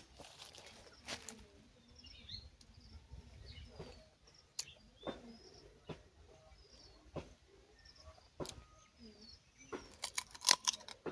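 Small birds chirping in short, high, downward-sliding calls, over scattered sharp clicks and rustles. A burst of louder clicks about ten seconds in is the loudest sound.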